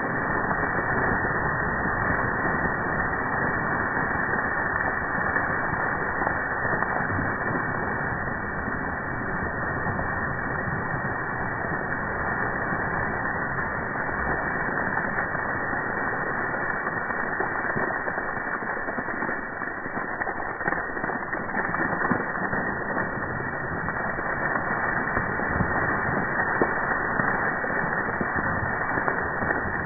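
Rainwater pooled on a pop-up canopy's roof pouring off its edge in a thick continuous sheet as the sagging roof is pushed up, splashing steadily onto the ground and into a spreading puddle.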